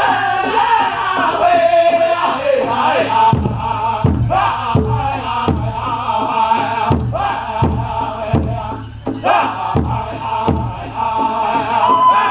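Powwow drum group singing a chicken dance song, several voices in unison. The big drum comes in about three seconds in and keeps a steady beat of about one and a half strokes a second.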